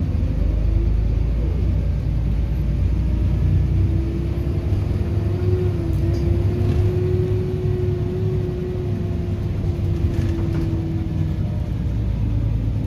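Volvo B7RLE bus heard from inside the passenger saloon while under way: steady low rumble of its six-cylinder diesel, with a steady whine over it that dips briefly around the middle and fades out near the end.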